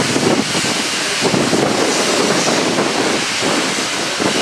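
Steam-hauled heritage train moving slowly, heard from an open carriage window: a loud, steady hiss without a clear beat.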